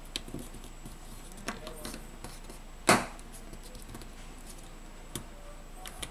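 A few sharp plastic clicks and taps as the Samsung Galaxy S10+ antenna module, the plastic cover carrying the wireless-charging coil, is pressed and seated onto the phone's frame. The loudest click comes about three seconds in.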